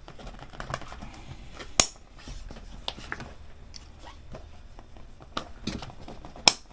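Chrome Buran III messenger bag being fastened by hand under its flap: sharp plastic clicks of the snap closure, one about two seconds in and another near the end, with fainter clicks and light nylon handling between.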